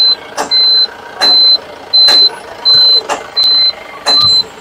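A truck's electronic warning buzzer beeping over and over, a single high tone about 1.4 times a second, with sharp clicks falling alongside most of the beeps.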